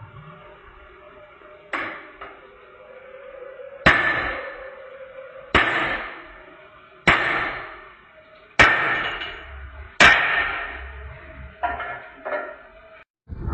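Hammer blows on metal, about one every second and a half, each ringing out and dying away. The middle five blows are the loudest, with lighter taps near the start and end.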